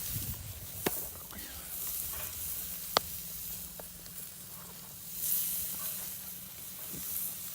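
Food sizzling over a charcoal and wood campfire, a steady hiss broken by two sharp pops about one and three seconds in.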